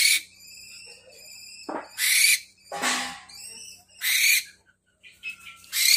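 Barn owl giving a series of harsh, hissing screeches, about five in a row, each roughly half a second long and high-pitched.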